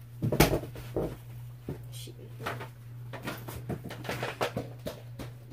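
Irregular soft knocks and clicks, with a louder thump about half a second in, over a steady low hum.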